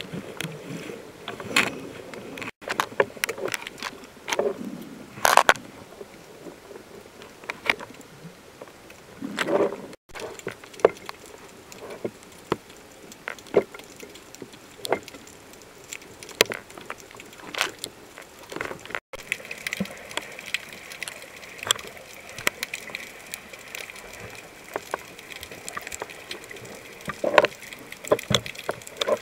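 Sea water heard through a camera held underwater: irregular clicks, crackles and bubbling with swirling water movement. A faint steady high whine joins about two-thirds of the way through.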